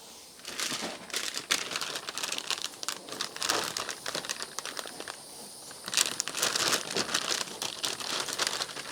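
Packaging crinkling and rustling as it is handled, an irregular run of crackles with a few busier stretches.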